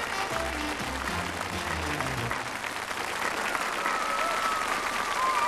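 Studio audience applauding and cheering, with the last notes of the band's music cutting off about two seconds in.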